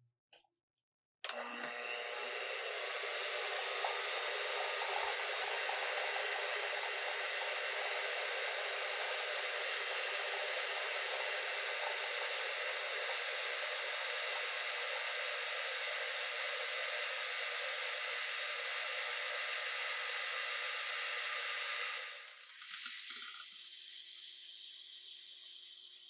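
Electric hand mixer running at medium speed, its twin wire beaters whipping eggs and sugar in a glass bowl: a steady motor whine that starts about a second in. A few seconds before the end it drops to a much quieter steady hum.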